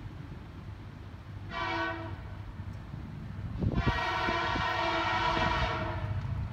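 Approaching diesel locomotive of the Holiday Train sounding its multi-note air horn: a short blast, then a longer, louder blast about two seconds later, over the low rumble of the train coming on.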